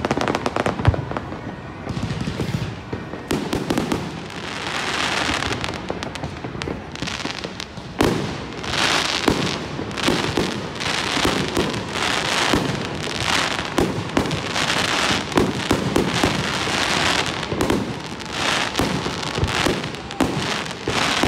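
Fireworks display, with aerial shells bursting in quick succession. It opens with a rapid run of bangs, and from about eight seconds in there is a steady string of bursts roughly once a second.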